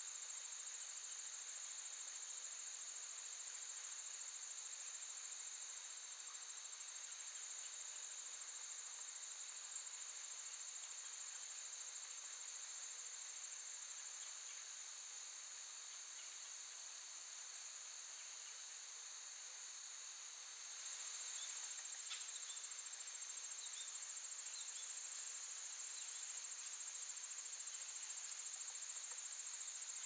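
A chorus of insects trilling steadily at a high pitch. It eases off slightly through the middle and grows louder again about two-thirds of the way through, with a few faint short chirps after that.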